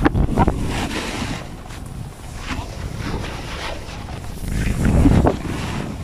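Wind buffeting the microphone with a rumbling rush, swelling at the start and again near the end.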